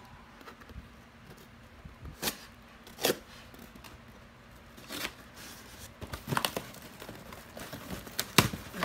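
A cardboard shipping box being opened by hand: packing tape torn and the flaps and packaging handled, in a string of irregular sharp rips, rustles and knocks, the loudest near the end.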